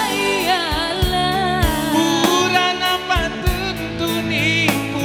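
A singer performing with a live band, the voice wavering through ornamented runs over a steady drum beat.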